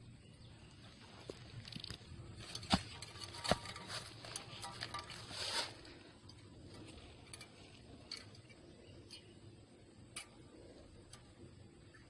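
Rustling and crunching in dry fallen leaves, with two sharp clicks close together about three seconds in and a louder rustle a couple of seconds later; then a quiet outdoor background.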